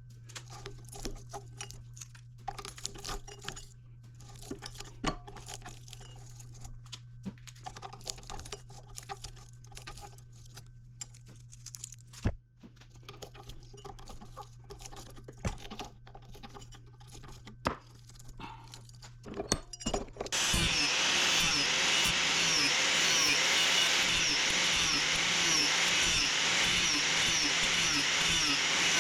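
Small metal parts clicking and clinking as they are handled, over a low steady hum. About twenty seconds in, an angle grinder starts and runs loud and steady.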